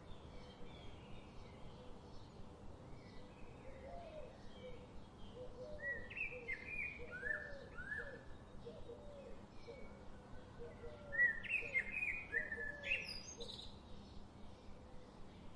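Several birds singing and chirping over a faint steady background noise, with a louder song of quick falling notes twice, about six and eleven seconds in.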